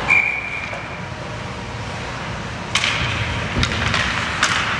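A referee's whistle blows once, briefly, at the start. Then skate blades scrape and sticks and puck clack on the ice, with a single low thud.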